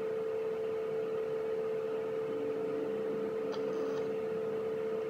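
A steady hum at one unchanging pitch over faint background hiss.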